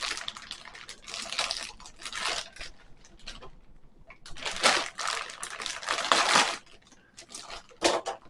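Plastic hardware bag crinkling and rustling in several bursts while screws are handled.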